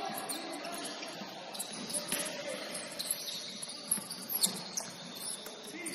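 Sneakers squeaking in short, high chirps on a hardwood basketball court during play, over the echoing noise of a large gym. A few sharp knocks, the loudest sounds, come a little after the middle.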